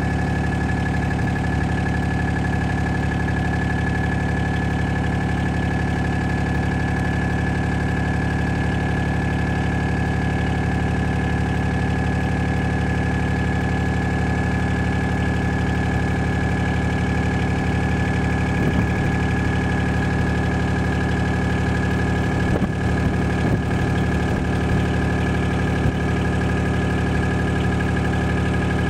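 Vehicle engine and road noise heard from inside the cabin while driving at a steady speed: a constant drone with a steady whine over it, and a few faint knocks in the second half.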